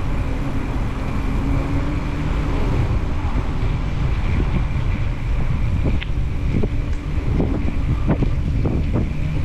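Wind buffeting the microphone of a camera carried on a moving bicycle, over the steady noise of the bike rolling along a path. From about four seconds in come scattered clicks and knocks, roughly two a second toward the end.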